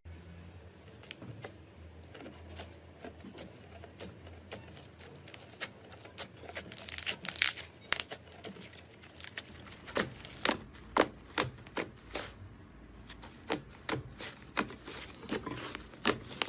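Slime being squeezed and poked, giving irregular sharp clicks and pops. They are sparse at first and come thick and fast in the second half.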